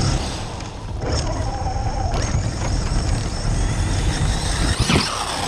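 Losi DBXL-E 1/5-scale electric RC buggy running, its brushless motor whining over a low rumble, with the whine falling in pitch near the end.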